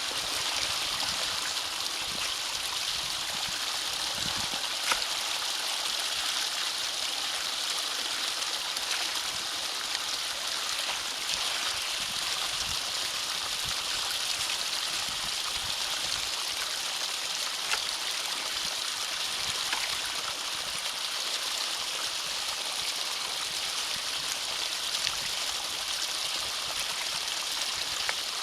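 Water flowing steadily through a drainage ditch culvert, an even hiss, with a few small sharp knocks, the clearest about five seconds in.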